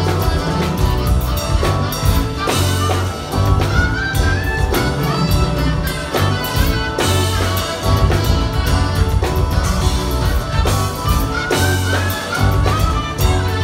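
Live band with drums, bass, acoustic guitar, violin and saxophone playing an instrumental passage over a steady beat, a lead line climbing in short stepped runs twice.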